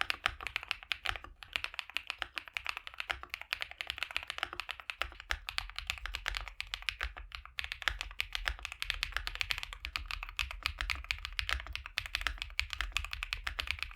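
Continuous typing on an Akko Mineral 01 75% aluminium mechanical keyboard with hand-lubed Akko Creamy Yellow U1 linear switches on an FR4 plate: a dense stream of keystroke clacks with a brief pause about halfway through. The sound tests of the board's foam setups play back to back.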